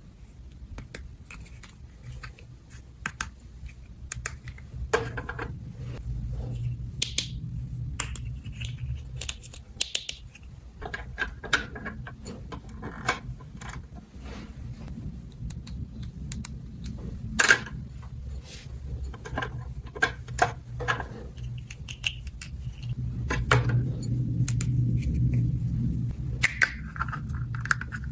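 Small plastic toy parts being handled and fitted together: scattered light clicks and taps, one sharper click about two-thirds of the way through, over a low steady hum.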